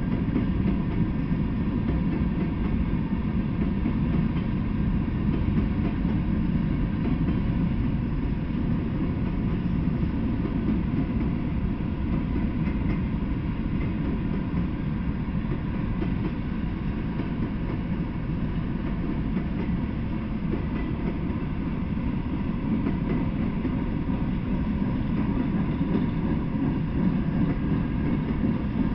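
Freight train of covered and open-top hopper cars rolling past, a steady low rumble of steel wheels on the rails.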